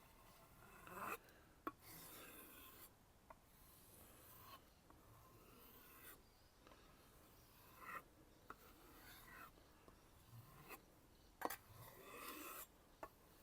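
Knife edge being drawn along a kangaroo-leather strop: faint, dry rubbing strokes in several runs, with a few light clicks between them.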